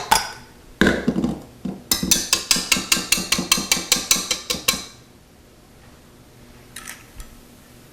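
A knock, then a quick run of ringing clinks against a mixing bowl, about five a second for nearly three seconds, as semi-sweet mini chocolate chips are added to the bowl of whipped egg whites.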